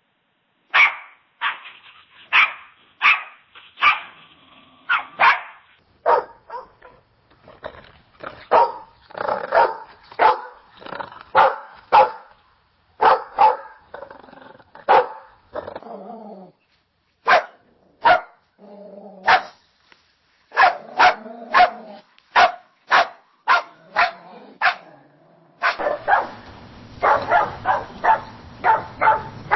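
Dogs barking in several separate recordings played one after another: short, sharp barks, often one or two a second, with brief pauses between the recordings. In the last recording, starting near the end, a steady hiss runs under the barks.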